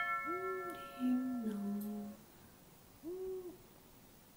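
A two-tone doorbell chime rings out and fades over the first two seconds. Short hoots of an owl ambience track sound through it, with one hoot about half a second in, a longer, lower falling call about a second in, and another short hoot about three seconds in.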